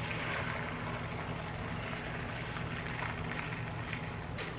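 Hot pickling brine poured in a steady stream from a pot over young radish greens in a glass container, splashing onto the leaves.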